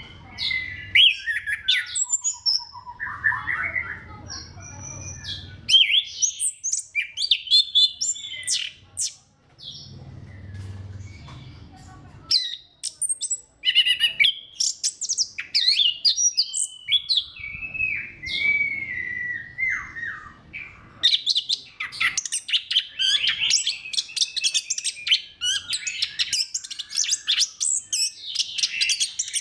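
Orange-headed thrush singing a long, varied song of whistles, gliding notes and chirps, with short pauses, turning into a fast, dense run of notes in the last third.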